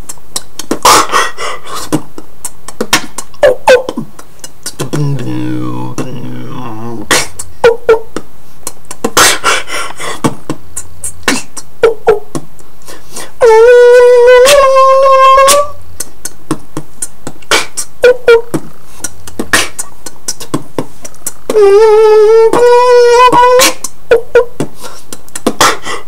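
Human beatboxing: a steady rhythm of mouth-made kick and snare clicks, with a low sliding bass tone a few seconds in. About halfway through and again near the end comes a loud held, buzzy synth-like voiced note that steps up in pitch.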